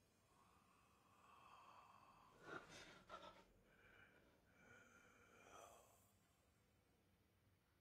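Near silence with faint breathing: a few soft breaths or sighs, two of them sharper about two and a half and three seconds in.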